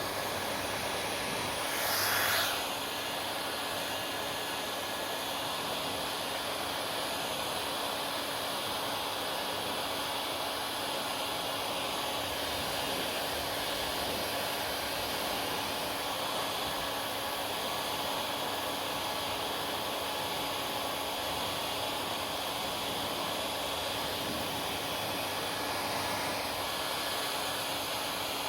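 Hair dryer running steadily, a constant rush of air with a faint steady hum in it, and a brief louder swell about two seconds in.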